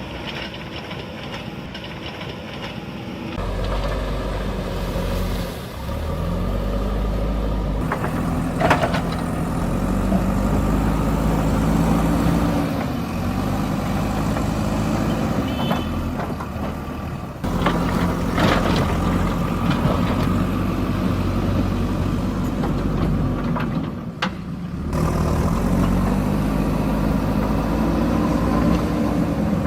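A JCB backhoe loader's diesel engine runs under load, its pitch rising and falling as it revs, with a few sharp knocks. The sound changes abruptly about three seconds in and twice more later.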